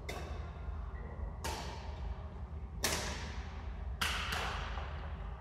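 Badminton rally: rackets striking the shuttlecock about every second and a half, each sharp hit followed by a short echo.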